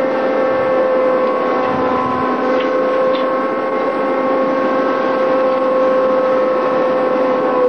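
Ship's engine running steadily at sea, a loud drone with one strong fixed pitch and its overtones, over the noise of wind and water.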